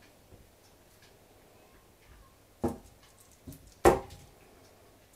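Two sharp wooden knocks a little over a second apart, the second louder: a CZ 453's walnut rifle stock being set down on a table.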